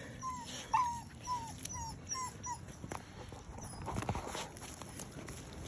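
A puppy whimpering: a string of about seven short, falling whines in the first two and a half seconds, followed by a few faint clicks and rustles.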